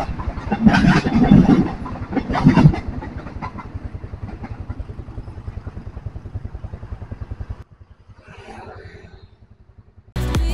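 KRL Commuter Line KfW i9000 electric multiple unit running past on the track with a steady, fast rhythmic clatter that cuts off abruptly. After a short faint gap, music starts near the end.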